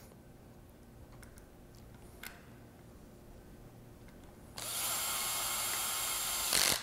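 Cordless screw gun running steadily for about two seconds near the end, driving a screw into the level sensor housing of an E/One grinder pump, then stopping abruptly.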